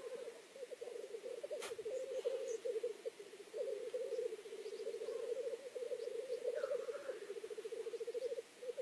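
Male black grouse giving the bubbling, cooing lek song (rookooing), a continuous rapid pulsing warble that goes on without a break. It is the display call of lekking blackcocks. A single sharp click comes about a second and a half in.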